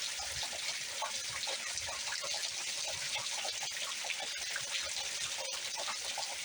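Steady rain falling, with many drops splashing and dripping close by.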